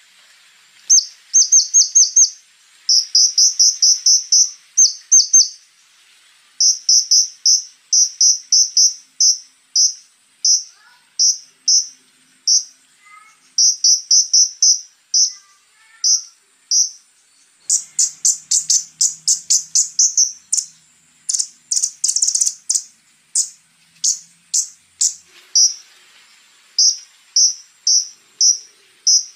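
Konin (flowerpecker) singing: sharp, high chip notes in quick runs of several a second, broken by short pauses, with a faster rattling series of notes past the middle. A faint steady high insect-like whine runs behind.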